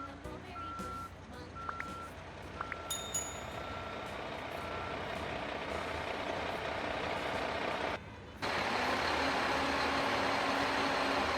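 Truck reversing alarm beeping about once a second over rising engine noise. After a brief drop about eight seconds in, a steady, louder engine sound takes over.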